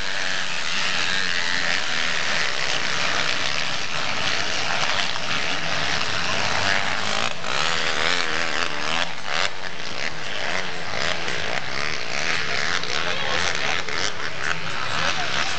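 Motocross dirt bikes racing around the track, their engines buzzing steadily and revving up and down, with one engine's pitch rising and falling around the middle.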